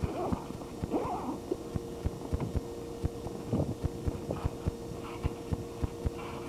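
Irregular dull thumps, several a second, of wrestlers' feet and bodies landing on a backyard trampoline mat, with a couple of brief shouts and a faint steady hum underneath.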